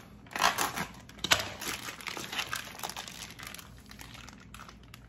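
Clear plastic meat packaging crinkling and tearing as it is slit with a knife and peeled off a raw beef cut. It comes in bursts, strongest in the first second and a half, then dwindles to lighter crackles.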